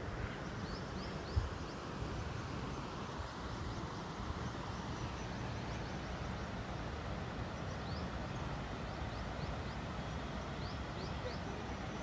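Outdoor ambience: a steady rushing background with short, high bird chirps now and then, and a single thump about a second and a half in.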